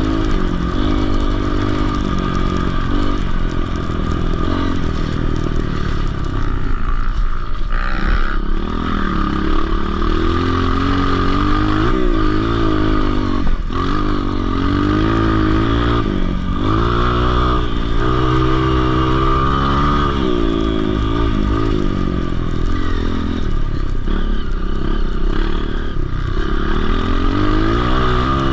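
Dirt bike engine being ridden on a motocross track, its pitch climbing and falling over and over as the throttle is opened and shut and gears change, with sharp drops in revs about eight, thirteen and sixteen seconds in.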